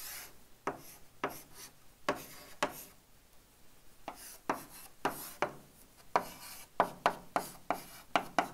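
Chalk drawing and writing on a chalkboard: a run of sharp taps and short scratchy strokes, coming faster near the end.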